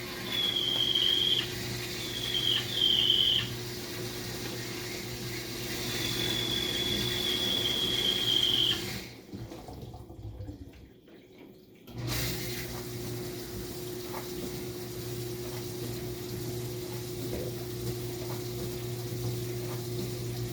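Kenmore model 587 dishwasher running with a steady motor hum and water swishing. A high-pitched squeal comes and goes three times in the first nine seconds; this is the loud abnormal noise the machine is making. The motor then stops for about three seconds and starts up again with its hum and water sound, without the squeal.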